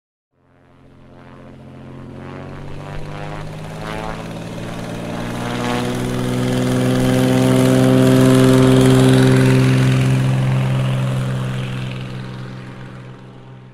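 Propeller airplane flying past: a steady propeller drone that swells over about eight seconds to a loud peak, then fades away, its pitch sinking a little as it passes.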